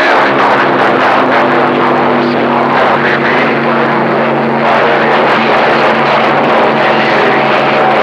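CB radio receiver's speaker carrying heavy static over a steady stack of whistling carrier tones from overlapping stations, with more whistles joining near the end. This is a crowded, noisy band: about 30 dB of noise, a "train wreck" with distant voices buried in it.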